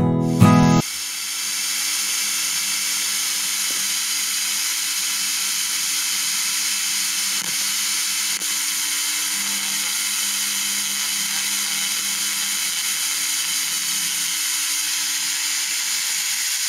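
Guitar music from a small FM radio receiver's speaker cuts off abruptly under a second in, leaving steady FM static hiss with a faint low hum: the receiver is picking up no station.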